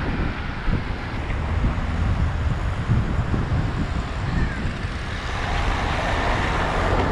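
Road traffic heard from a moving bicycle: cars running on the road alongside, under a heavy, restless low rumble of wind on the action-camera microphone.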